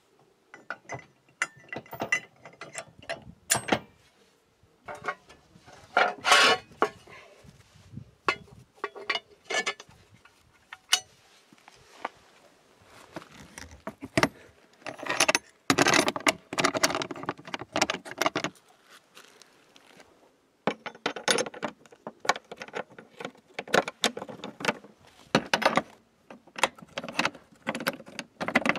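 Metal clicks and clinks of trailer locks being worked by hand: a coupler lock on the trailer hitch, then a puck lock on the cargo trailer's door latch bar. The clatter comes in irregular bursts with short quiet gaps.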